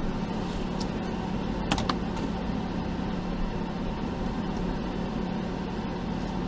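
Jeep engine running at a steady idle, a constant low hum, with a couple of brief clicks about one and two seconds in.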